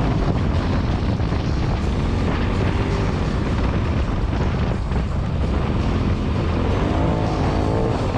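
Side-by-side UTV engine running steadily under way, a dense low rumble throughout.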